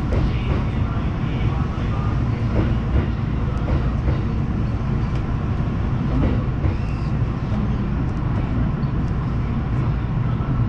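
Kintetsu limited express train running past on the adjacent track: a steady low rumble of motors and wheels, heard from the cab of a standing train.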